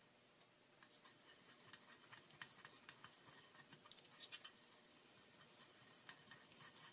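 Faint scratching and small clicks of acrylic paint being mixed, starting about a second in and going on irregularly.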